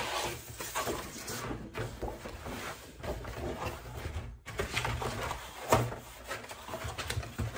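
A flat cardboard mailer box and its protective paper sheet being handled: irregular paper rustling and cardboard scraping and flexing, with one sharper, louder knock about three quarters of the way through.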